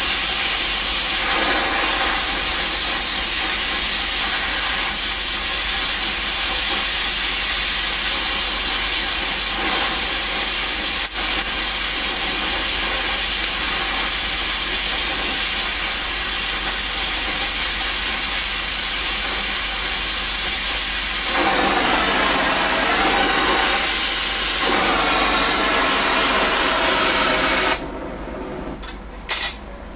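Harris 50-3 oxy-acetylene torch flame hissing steadily while welding, then cutting off suddenly near the end as the torch is shut off.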